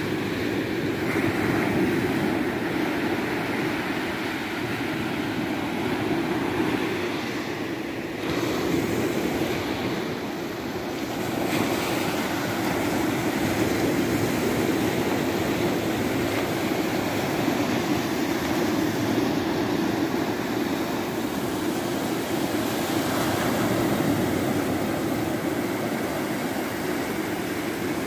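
Small sea waves breaking at the shoreline and washing up the sand: a steady rush of surf that swells and eases.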